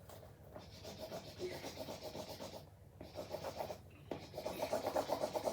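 Pencil scribbling rapidly back and forth on paper, coloring in, with short breaks a little after halfway through.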